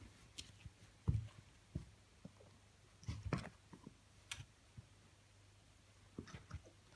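Rottweiler puppy hiccuping: faint, short low hiccups at uneven gaps of one to three seconds, the strongest about a second in and around three seconds in, with light clicks between.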